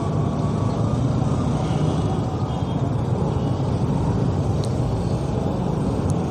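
Steady running of a motorcycle engine at low speed, mixed with the hum of surrounding cars and scooters in slow city traffic on a wet road.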